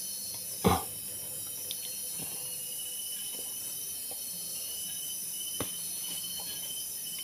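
Night insects such as crickets trilling steadily over a high hiss, with a single sharp knock just under a second in and a few faint ticks later.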